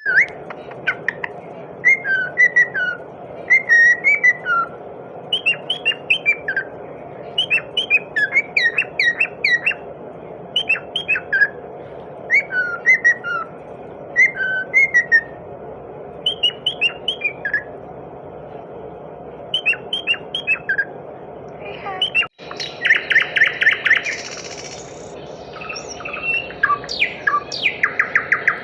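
Birds singing: short whistled and chirped phrases repeated every second or two. About 22 seconds in the sound cuts abruptly to different birds giving rapid, buzzy trills.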